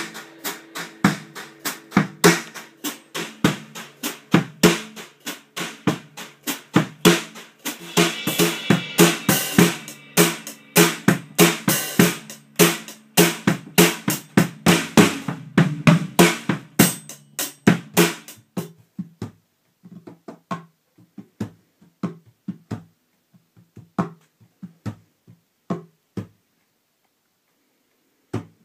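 Drum kit and electric bass guitar playing a groove together, with kick, snare and cymbal hits over held bass notes. About two-thirds of the way through the playing thins to scattered single hits, then stops shortly before the end.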